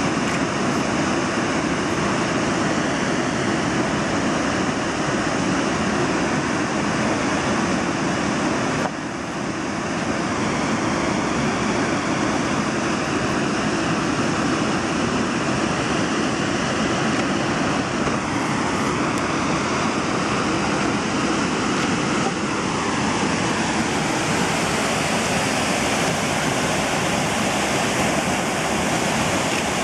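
Steady rush of river water, an even noise with no let-up, briefly dipping in level about nine seconds in.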